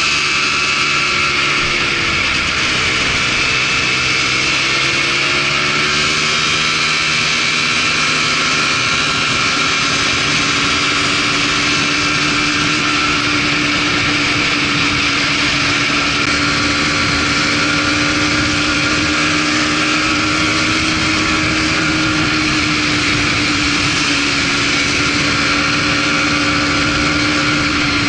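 Polaris Trail Blazer ATV engine running steadily while riding along a dirt trail, its pitch dipping and rising slightly with the throttle.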